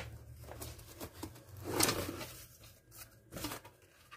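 Box holding a griller plate being opened and handled: irregular rustling and scraping of the packaging, loudest about two seconds in.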